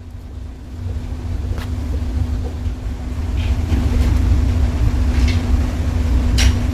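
Steady low room rumble with a constant hum, broken by a faint click about a second and a half in and a sharper click near the end.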